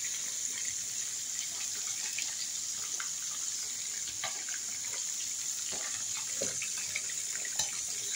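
Steel pot of chicken curry gravy at a hard rolling boil: a steady hiss with many small bubbling pops through it.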